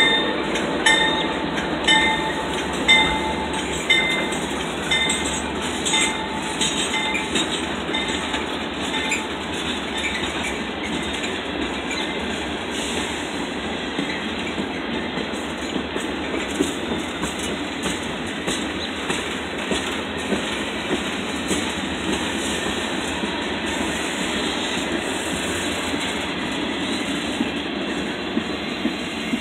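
Freight train rolling past, its car wheels clattering and rumbling steadily over the rails. For the first several seconds a ringing stroke repeats about once a second, the lead CSX CW40-8 locomotive's bell, fading out as the locomotive pulls away.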